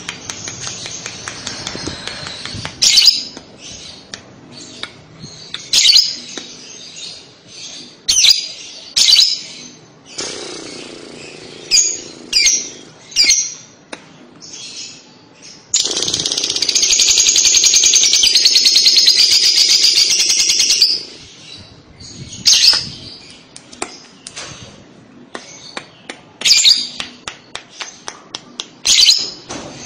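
Lovebirds calling: short, shrill chirps every few seconds, and in the middle one long, very rapid chattering trill of about five seconds, the 'kekek' chatter that keepers play to get young lovebirds to answer.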